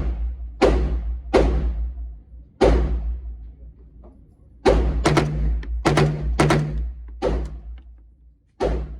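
Gunshots fired one at a time at a shooting range, about ten sharp reports at an uneven pace with a short echo after each, over a steady low hum.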